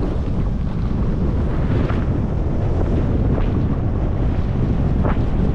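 Wind buffeting the microphone of a camera on a rider speeding down a groomed ski run: a steady low rumble, with brief scrapes of edges on the snow about two, three and a half and five seconds in.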